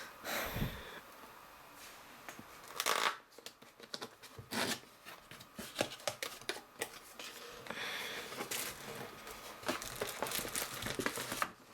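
Cardboard box and paper packaging being handled and unpacked: irregular rustling and crinkling with scattered sharp clicks and scrapes.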